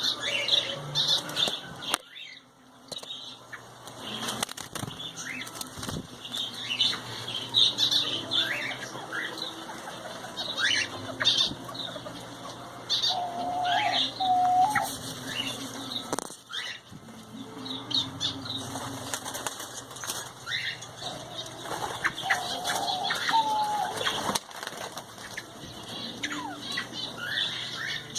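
A colony of small cage birds chirping and calling all together, with wings fluttering.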